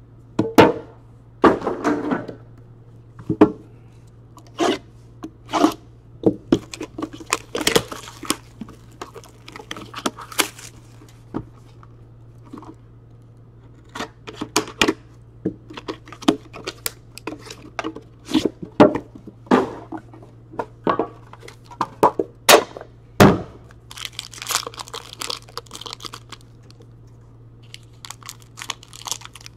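Upper Deck Premier hockey card box and foil pack being handled and cut open: foil and cardboard crinkling and tearing, with many short clicks and knocks. One heavier thump comes about three quarters through.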